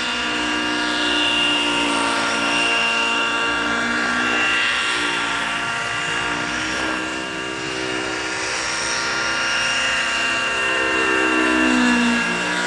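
Freya 90 radio-controlled model helicopter in aerobatic flight, its engine and rotors running with a note that keeps rising and falling in pitch as it manoeuvres. It is loudest near the end, where the pitch climbs and then drops.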